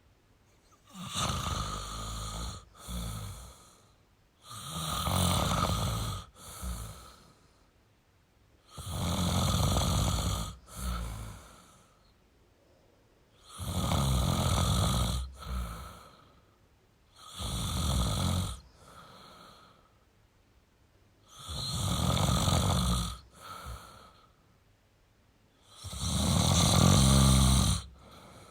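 A sleeping person snoring in a steady rhythm: seven snores about four seconds apart, each a long snore followed by a shorter one.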